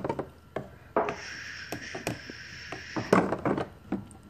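Plastic dishes knocking and clattering in a toy kitchen sink while being 'washed'. About a second in, a steady hiss starts and runs for about two seconds, the toy faucet's running-water sound effect.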